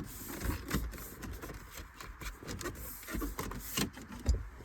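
Hard plastic interior trim rubbing and clicking irregularly as a center-console panel is worked into place around the shifter bezel, with a couple of sharper knocks near the end.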